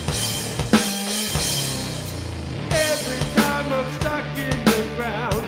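Two-piece rock band playing: a bass guitar riff over a drum kit beating out a steady rock rhythm with sharp hits.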